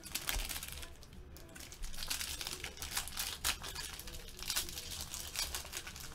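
Trading-card pack wrappers crinkling and tearing as packs are opened by hand, a run of irregular crackles.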